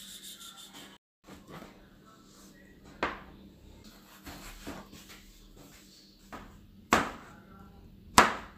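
Chef's knife chopping on a plastic cutting board: irregular, separate knocks of the blade hitting the board, the loudest near the end.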